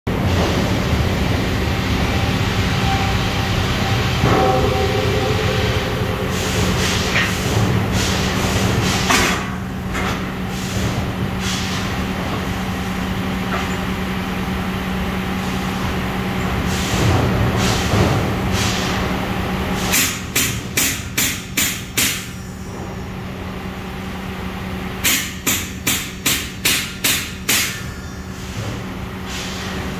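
Hammer blows on a large Canadian circular saw blade lying on a saw bench: scattered single strikes at first, then two quick runs of about seven or eight blows near the end. A steady low hum runs underneath throughout.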